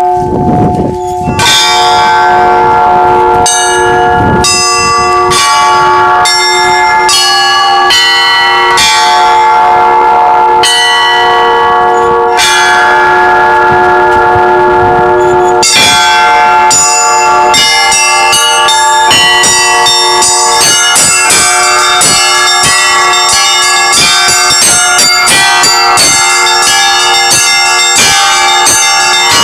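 Russian church bells ringing in a rhythmic peal: repeated strikes of several bells over the long hum of the deeper bells. About halfway through, the striking quickens into a dense, fast pattern of many smaller bells.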